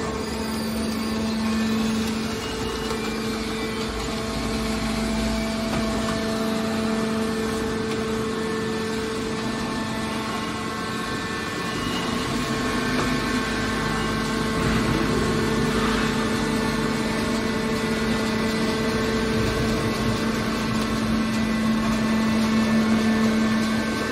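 Hydraulic scrap metal baler's power unit running: electric motor and hydraulic pump giving a steady, unchanging hum.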